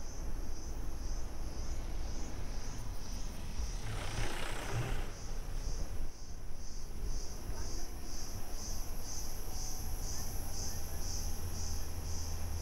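Insects chirring in a steady pulsing rhythm, about three pulses a second, over a low steady rumble. About four seconds in, a brief rushing noise lasts about a second.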